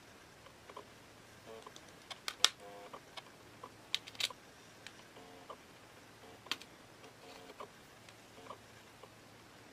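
Small metal fishing-reel parts (washers and a brass gear) being picked up and set down on a metal tray: scattered light clicks and taps, the sharpest about two and a half, four and six and a half seconds in.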